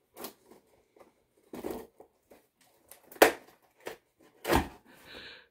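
Cardboard shipping box being opened by hand: scattered scrapes, rustles and knocks of cardboard, with a sharper knock about three seconds in and a short rasp near the end.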